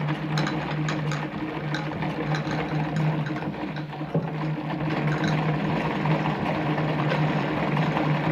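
Singer 319K sewing machine running at a steady speed to wind a bobbin on its bobbin winder, a steady mechanical hum.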